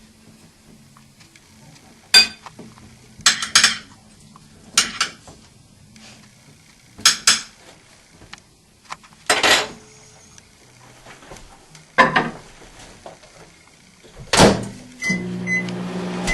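A series of sharp knocks and clatters as a glass dish and the microwave door are handled, then a microwave oven starts up about fifteen seconds in, with a short keypad beep and a steady hum of it running.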